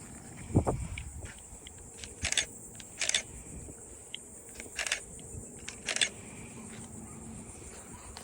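A faint, steady, high insect drone from the marsh. Over it come a dull thump about half a second in and four short crunching noises about a second apart.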